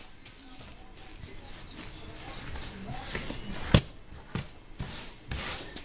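Rustling and handling of a slip-on fabric seat cover as it is pulled and readjusted on a golf cart's rear seat, with one sharp click a little before four seconds in. Faint bird chirps in the background a little after a second in.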